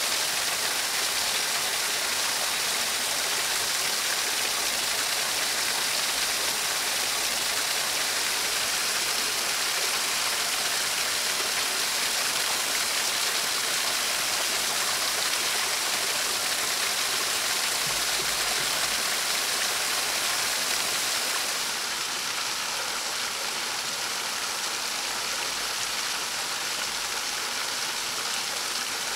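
A small woodland stream spilling over a low cascade: a steady rush of water that gets a little quieter about three-quarters of the way through.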